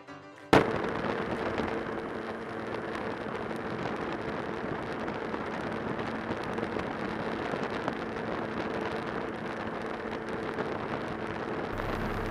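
Motorcycle cruising at highway speed: steady wind and road rush on the bike-mounted microphone, with the engine's even drone underneath. It starts abruptly about half a second in.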